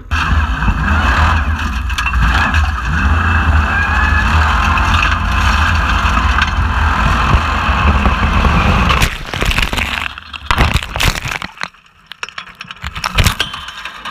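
An unlimited-class Formula Offroad buggy's engine runs hard and steadily for about nine seconds, picked up by the onboard camera. It then breaks off into a string of sharp knocks and bangs as the car tips over onto its side.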